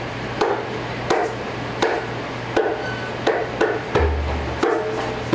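A steady percussion beat, sharp strikes about three every two seconds, keeping time as a song begins. About four seconds in, a low bass note and pitched instrument tones join the beat.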